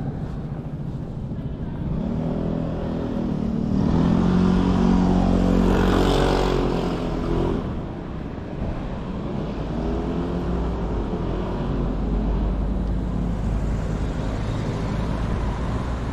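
Street traffic, with a motor vehicle's engine passing close by, loudest about six seconds in. A second, quieter vehicle passes a few seconds later.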